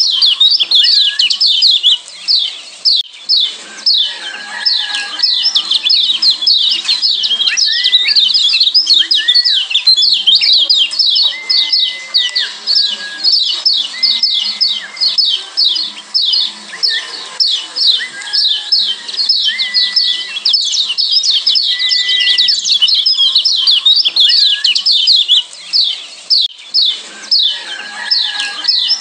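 Yellow white-eyes (kecial kuning, Zosterops) giving a dense, continuous stream of rapid high 'ciak' chip calls, with short level whistled notes lower down every second or two.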